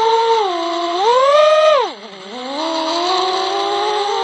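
FPV drone's electric motors and propellers whining, the pitch rising with throttle, then falling steeply with a dip in loudness about two seconds in, and climbing slowly again.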